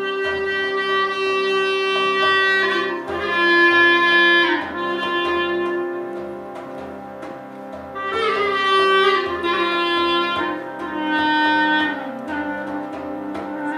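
Clarinet playing a slow melody of long held notes that bend in pitch, over a steady harmonium drone, with soft, regular frame-drum beats keeping time.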